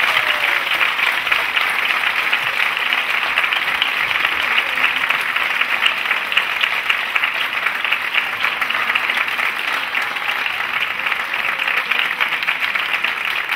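Audience applauding: many hands clapping in a steady, dense patter that holds at the same level throughout.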